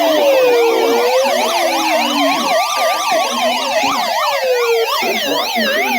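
Several electronic sirens sounding together. Slow wails rise and fall over a few seconds, layered over fast yelps that cycle several times a second.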